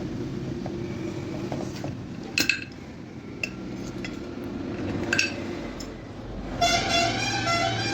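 Metal ceiling-fan parts and tools clinking together as they are handled: a few sharp clinks with brief ringing, about two and a half, three and a half and five seconds in, over a steady low hum. A short run of pitched tones comes in near the end.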